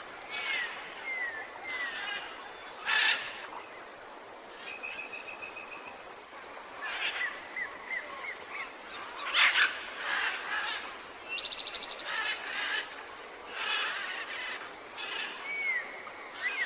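Tropical forest ambience of many birds calling over a steady background hiss: short slurred whistles, a held repeated note, a fast trill, and louder bursts of chatter about 3 and 9.5 seconds in.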